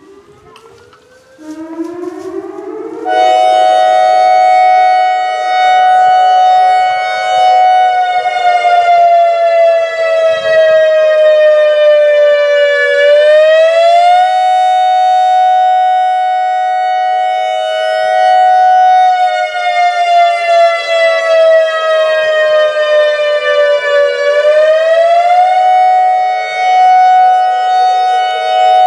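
ACA Alertronic AR-1600 electronic warning siren sounding its attack signal. The tone climbs in pitch and swells to full volume over the first three seconds. It then holds, sags slowly lower in pitch over several seconds and snaps back up, a cycle of about eleven seconds that runs twice.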